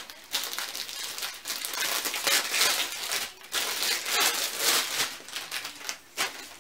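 Clear plastic wrapping crinkling and rustling as an umbrella is pulled out of it, irregular and on and off, loudest in the middle.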